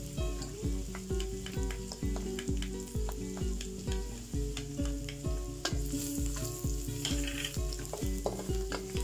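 Onion and freshly added minced garlic sizzling and crackling in hot oil in a metal wok, with a wooden spatula stirring near the end. A steady beat of background music runs underneath.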